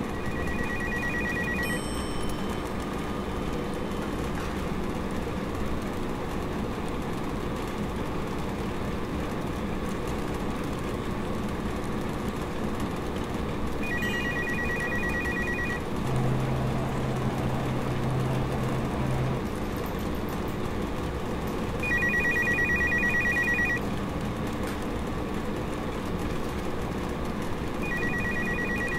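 Electronic telephone ringing with a fast trilling tone, in four bursts of about two seconds each with long gaps between them, over a steady background hum.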